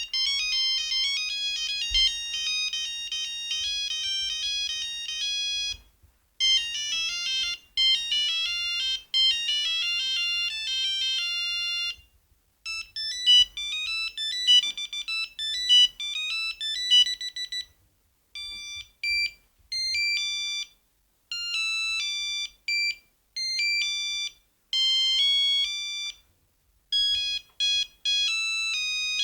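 Siemens C35 mobile phone playing its monophonic ringtones, one high-pitched melody after another with short breaks between tunes. One tune has fast trilling runs, and the last is played in short, separate phrases.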